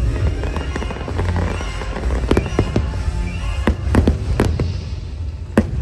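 Fireworks show: a string of sharp bangs and cracks over a steady low rumble, with the show's music playing underneath.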